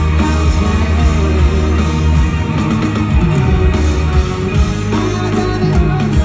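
Rock band playing live, with electric guitar prominent over a steady bass line.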